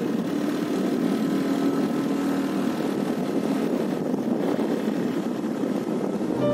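Motorcycle running steadily along the road, its engine hum mixed with a steady rush of wind and road noise.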